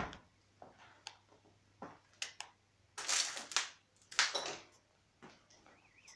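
Footsteps crunching and scuffing on grit and debris on the floor of an abandoned railway carriage: a scatter of short crunches and clicks, the loudest about three and four seconds in.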